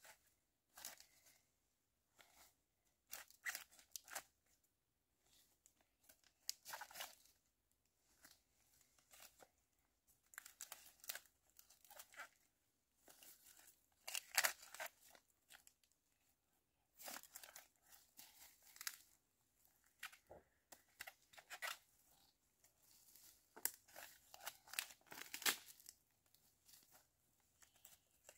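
Faint, irregular bursts of crisp tearing and crinkling, a few short strokes at a time with pauses between.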